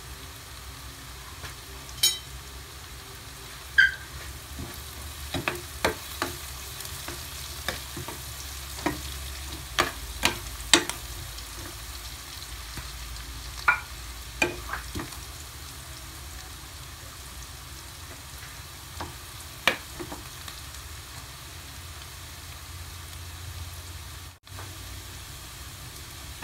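Onion, garlic and chili sautéing in melted butter in a wok, a steady sizzle with scattered sharp pops and clicks.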